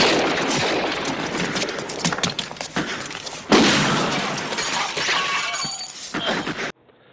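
Film soundtrack of a shooting: a sudden loud blast at the start and another about three and a half seconds in, each trailing off into shattering, crackling debris as a boombox is shot to pieces.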